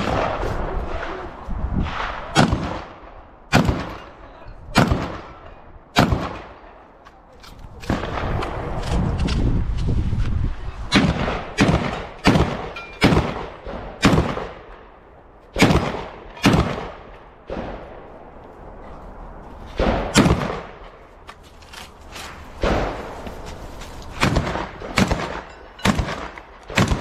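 Gunfire on a practical shooting stage: about two dozen shots at irregular spacing, singles and quick pairs and runs, each with a short echo. About eight seconds in there are a few seconds of low rumbling noise between shots.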